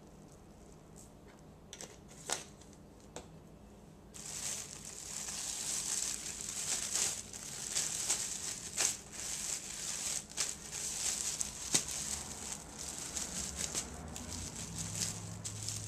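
A few light clicks, then from about four seconds in a clear plastic bag holding flour and cornmeal crinkles steadily as it is gathered up and shaken to mix the seasoned dredge.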